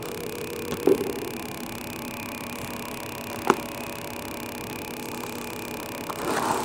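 Handfuls of potting mix being scooped and dropped into a flower pot: a soft thud about a second in, a sharp click midway, and a rustling patter near the end, over a steady hiss.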